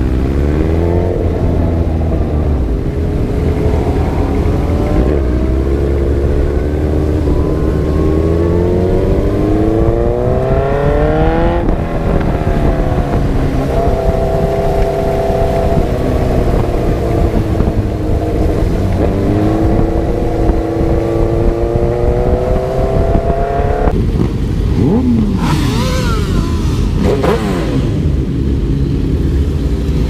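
Suzuki GSX-R sport bike's inline-four engine accelerating under the rider, its note climbing in pitch several times as it pulls and then holding steady, with wind rushing over the microphone. Late on, a second engine note drops sharply in pitch.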